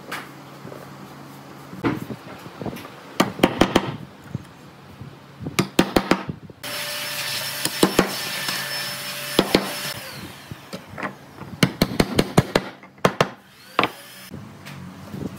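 Clusters of sharp wooden knocks and clacks as thin pine slats are set into a slotted wooden base, some in quick runs of several taps. About halfway through, a steady hiss starts suddenly and fades out after about three seconds.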